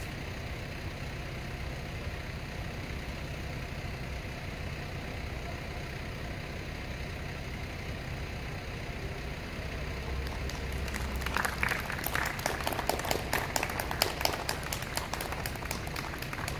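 Steady low rumble of city background; about ten seconds in, people start clapping, a dense, uneven patter of claps that carries on to the end.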